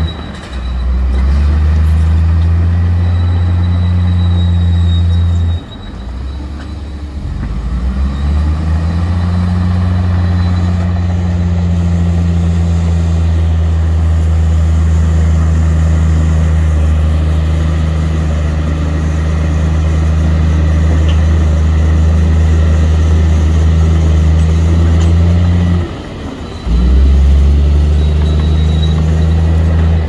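Heavy diesel engines of a crawler bulldozer and dump trucks running steadily with a loud, deep drone. The drone drops off for a couple of seconds about six seconds in and again briefly near the end.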